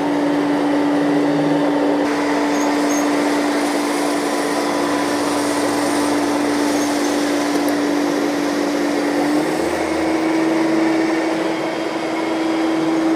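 Robot vacuum cleaners running on carpet: a steady whirring suction motor with a humming tone that steps slightly higher about nine and a half seconds in.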